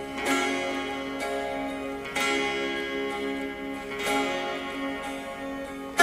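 Theme music: bright ringing notes struck about every two seconds, each dying away, over a held low note that gently pulses.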